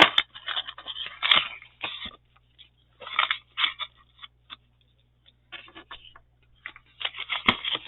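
Sheets of craft paper being handled and shuffled, rustling in irregular bursts with a few sharp clicks, quieter for a moment midway and busier again near the end.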